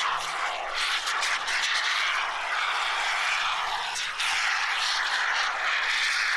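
Aerosol can of expanding spray foam hissing steadily as foam is sprayed out, with a brief break about four seconds in.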